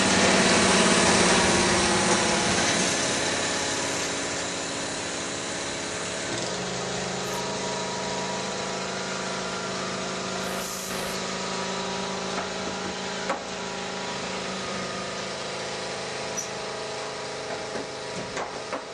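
Construction-site machinery: an engine running steadily, louder for the first few seconds and then easing, with a few faint knocks.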